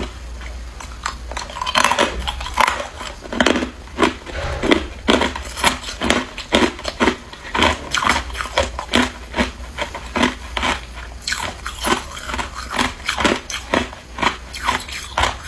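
A person biting and chewing hard ice cubes: a steady run of sharp, cracking crunches.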